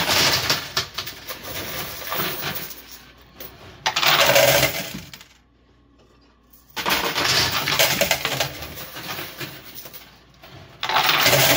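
Quarters clattering and jingling as they drop into a coin pusher machine, in four long runs with a short lull a little before halfway.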